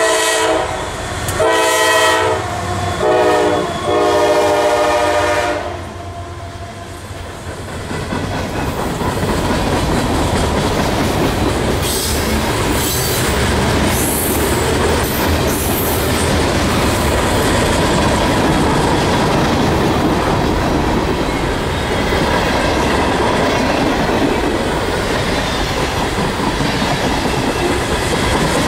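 A CSX GE wide-cab diesel locomotive's air horn, sounding close by in several blasts: a long, a short and a long, the end of a grade-crossing signal. Then the locomotive and its freight cars roll past with steady rumbling wheel and rail noise and clickety-clack over the rail joints, and brief high wheel squeals about halfway through.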